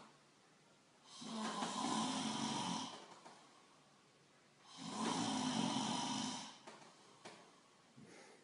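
A sleeping person snoring: two loud snores of about two seconds each, with quiet pauses between them.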